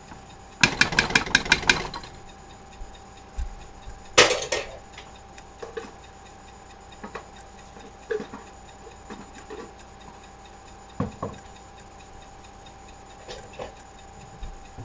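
A tablespoon tapped quickly against the rim of a stainless steel pot, about eight sharp clinks in a second, knocking off mayonnaise. A single louder clunk follows a few seconds later, then a few faint knocks.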